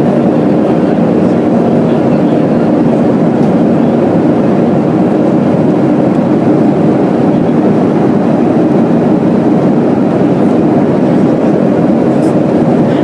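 Steady cabin noise of a Boeing 737-300 in flight: its CFM56-3 jet engines and the rush of air over the fuselage, heard from inside the cabin, with a low hum running through it.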